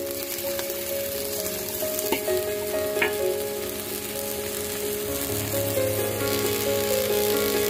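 Asparagus and garlic sizzling in hot oil in a wok while a spatula stirs and scrapes them, with two sharp knocks of the spatula on the pan about two and three seconds in. Soft background music plays underneath.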